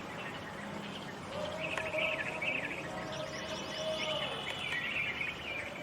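Small birds chirping and twittering in quick clusters, over outdoor background noise. A steady lower tone is held for about three seconds in the middle.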